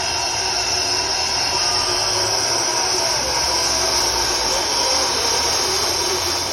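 Zip-line trolley running along a steel cable: a steady whirring hiss with a faint whine that wavers in pitch.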